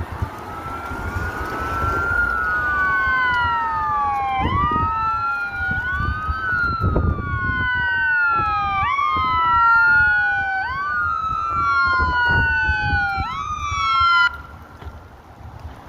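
Emergency siren wailing as the ambulance arrives: two siren tones overlap out of step, each rising quickly then falling slowly about every two seconds. The siren cuts off abruptly near the end, leaving low vehicle and wind rumble.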